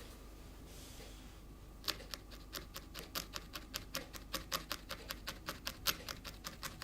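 Felting needle stabbing into wool: a quick, even run of sharp taps, about four or five a second, starting about two seconds in.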